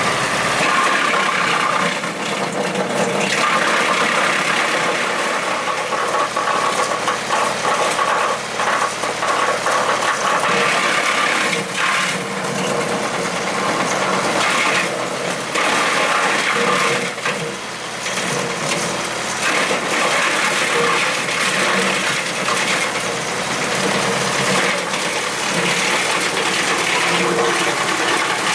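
Tractor-PTO-driven wood chipper (Remet RT 630) running and chipping wood: a continuous loud clattering, crunching rattle that rises and dips unevenly as material goes through.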